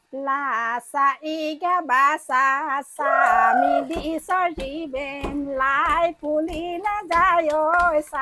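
Women's high voices singing a traditional Deori folk song, joined about three seconds in by a steady beat of about one stroke every 0.6 seconds, which may be the dancers' hand claps.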